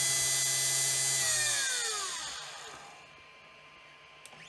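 The CNC 3018 Pro's spindle motor runs at speed with a steady whine. It is switched off about a second in and winds down, its pitch falling smoothly until it stops about three seconds in. A small click follows near the end.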